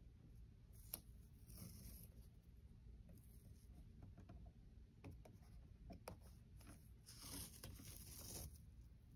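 Faint handling sounds of washi tape being unrolled and pressed along a paper planner page: a small click about a second in, a short soft peel of tape off the roll just after, and a longer peel about seven seconds in.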